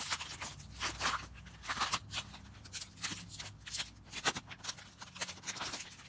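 Clear plastic blister packaging crinkling and tearing as a hand tool is pulled out of its card backing: a run of irregular sharp crackles.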